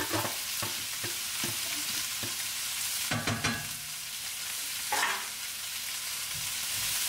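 Stir-fry vegetables sizzling steadily in a stainless steel frying pan, with a few knocks and scrapes of a wooden spatula stirring them against the pan, the loudest around the middle.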